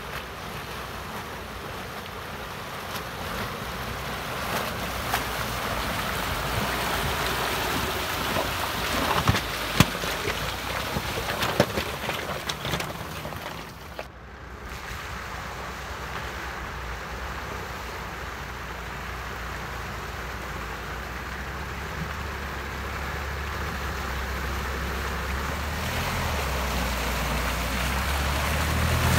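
4x4 vehicles wading through a shallow river ford: water splashing and sloshing around the wheels, with wind on the microphone. A sharp splash comes a few times in the first half. In the second half a low engine note grows louder as a Jeep Wrangler drives through the water.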